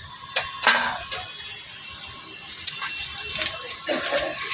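A large katla fish being cut by hand on a boti, an upright fixed blade: a few sharp knocks and scraping clicks as the fish is pressed through the blade and shifted on the wooden block.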